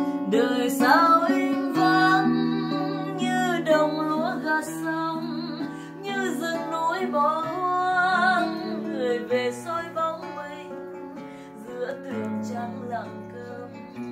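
A woman singing a slow melody over acoustic guitar accompaniment; her voice drops out near the end, leaving the guitar.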